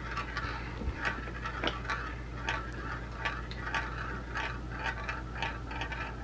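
A glass marble rolling around the plastic funnel bowl of a toy marble run, clicking lightly against the plastic about three times a second.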